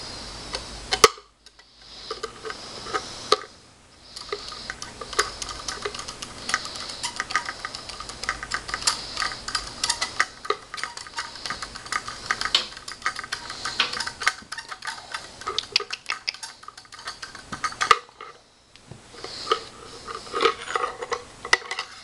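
Flathead screwdriver turning out the long stock bolt of a Remington 870 shotgun: a dense run of small metallic clicks and scrapes, broken by a few short pauses, with one sharper click about a second in.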